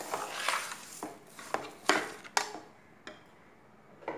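A spatula stirring grated coconut and sugar in a metal pot: scraping and rustling with a few sharp knocks against the pot, then the stirring stops about halfway through.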